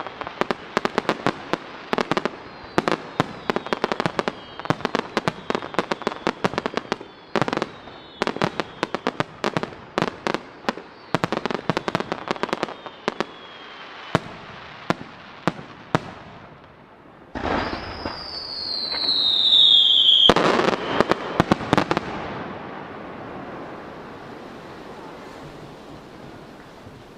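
Starmine fireworks barrage: a fast, dense succession of aerial shell bursts with whistles falling in pitch. After a short lull past the middle, a loud descending whistle and a final volley of big bangs follow, their rumble echoing and fading away.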